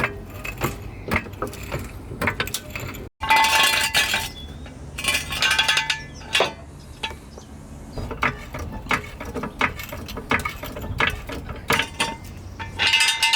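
Irregular light metallic clinks and knocks of hand tools and sockets being handled and set down, with a brief dropout about three seconds in.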